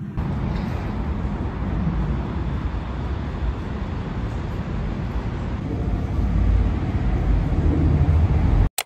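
Steady low rumble of outdoor city ambience with distant traffic. It cuts off suddenly near the end.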